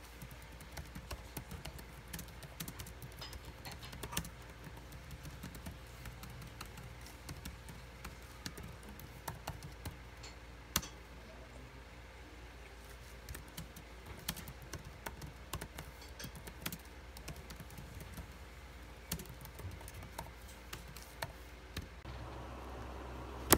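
Typing on an ASUS laptop keyboard: irregular runs of light key clicks with a few louder taps. Near the end the typing stops and a single sharp knock follows.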